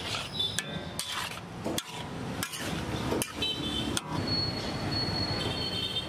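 Metal spatula scraping and knocking against a large iron wok while stir-frying: sharp clanks roughly every half second to a second, with short high squeals of metal scraping on metal, and a steady high squeal from about four seconds in.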